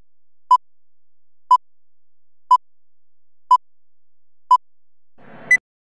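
Film-leader countdown beeps: short electronic beeps of one steady pitch, once a second, six in all, then a final higher-pitched beep over a brief burst of noise near the end.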